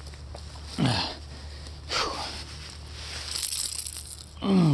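A man's wordless excited exclamations and heavy breaths, falling in pitch, about a second in and again near the end, with rustling of clothing and brush in between.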